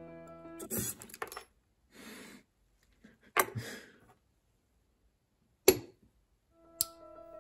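Several sharp clicks with short rustles in between, as hands fit wire connectors and a rocker switch into the metal base of a model engine kit. Piano music fades out at the start and comes back near the end.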